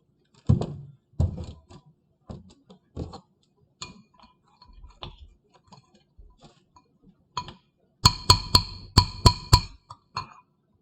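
Kitchen handling sounds: scattered knocks and clicks, then near the end a quick run of about eight sharp, ringing clinks, like a utensil tapping a ceramic or glass bowl.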